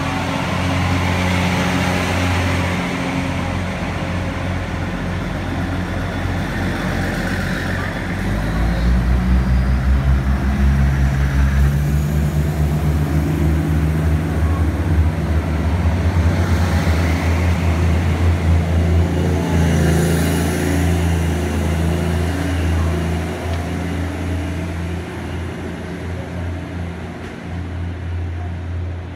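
Taiwan Railways DR3000 diesel multiple unit pulling out of the station, its diesel engines running with a steady low drone. The sound grows louder and takes on a fast rhythmic pulse about eight seconds in, then fades as the train draws away.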